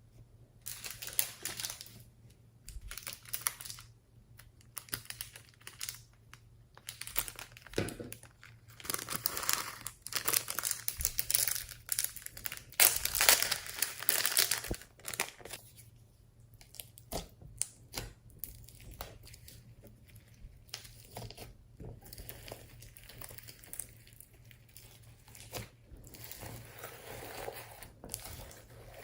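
Slime being mixed and squeezed by hand, making irregular crackling and popping sounds that are loudest in the middle stretch.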